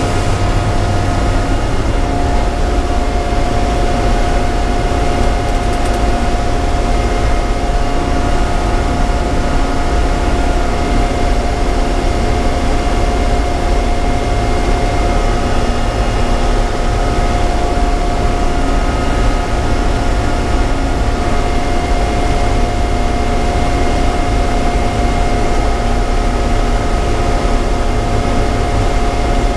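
Loud, steady drone of a frac blender's heavy machinery heard from inside its control cab: a deep rumble with a steady whine over it.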